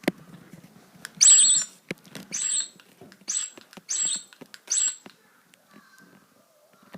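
Sound-distorting voice-changer toy squeaking out five short, very high-pitched bursts about a second apart, a voice pitched up to a chipmunk-like squeak, with a couple of handling clicks between them.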